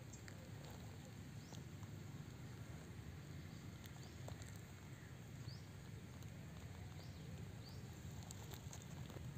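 Faint background noise: a steady low hum with scattered light ticks and a few brief high chirps.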